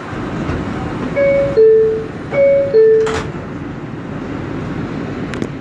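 Door chime of an R142 subway car: a descending two-note ding-dong sounded twice in quick succession, over the steady rumble of the train. A sharp click follows shortly after the second chime.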